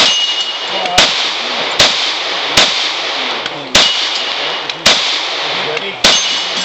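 Rapid pistol shots, seven in all at roughly one a second, fired at pin targets. After some of the shots a thin ringing tone lingers, as from a struck metal target.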